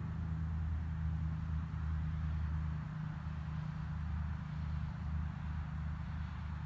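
Low, steady outdoor rumble with a soft hiss over it.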